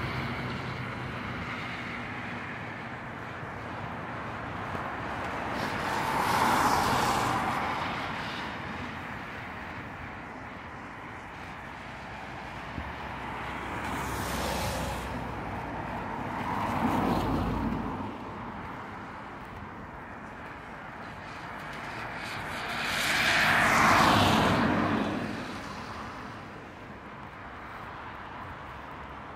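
Cars passing on a wet road, their tyres hissing as each one swells up and fades away, four times, the loudest pass near the end, over a steady rushing background.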